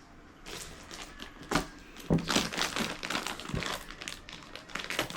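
Packaging crinkling and rustling as a board-game box is unwrapped and opened, with irregular small taps and knocks from handling, busiest from about a second and a half in.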